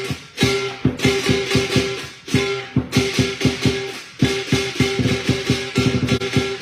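Lion dance percussion: a large drum beaten in fast, steady strokes with cymbals clashing and a ringing metal tone over them, breaking off briefly about two seconds in and again about four seconds in.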